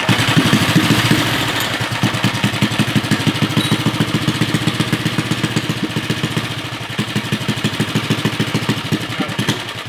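Briggs & Stratton 5 hp flathead single-cylinder engine being spun over with a corded drill on the flywheel for a start, chugging in fast, even pulses that ease off slowly toward the end.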